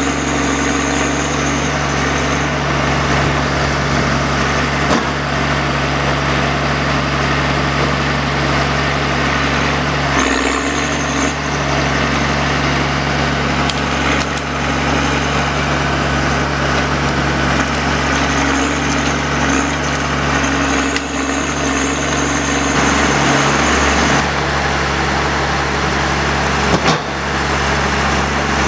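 John Deere 1110D forwarder's diesel engine running steadily as its crane handles logs, with a thin high whine that comes and goes. Two sharp knocks stand out, one about five seconds in and one near the end.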